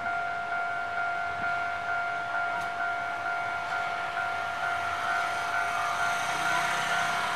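Railway level-crossing warning signal sounding a steady, slightly pulsing electronic tone. A train's running noise builds underneath it toward the end as the train approaches.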